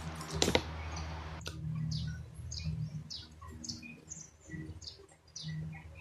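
Rapid clicking of a 3×3 Rubik's cube being turned, ending with a sharp loud click about half a second in. After that, small birds chirp repeatedly in short, high, falling notes.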